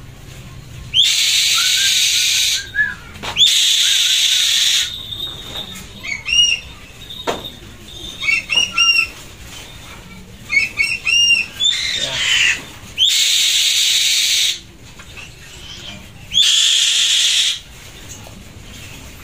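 Black-winged kite calling: about four long, harsh screeches of one to two seconds each, with short chirping calls between them.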